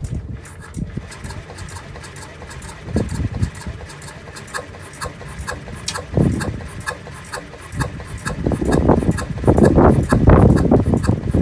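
Small moped scooter engine running unevenly, with a steady ticking and irregular surges that grow louder and more sustained in the last few seconds.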